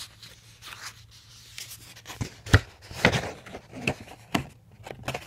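Sheets of drawing paper being shuffled and handled, with rustling, then a run of sharp knocks and rubs from about two seconds in, the loudest at about two and a half seconds.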